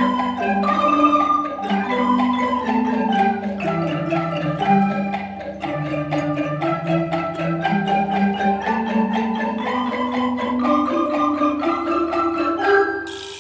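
A children's ensemble of wooden marimbas and xylophones plays a quick, steady tune of mallet strikes over a low bass line. The piece ends near the end.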